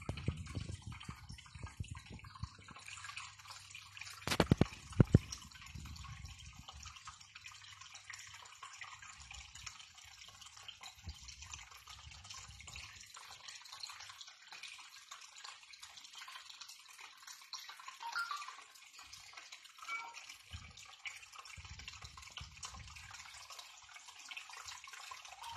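Aquarium water bubbling and trickling, a faint steady fizz of fine drips. A couple of sharp knocks about four to five seconds in.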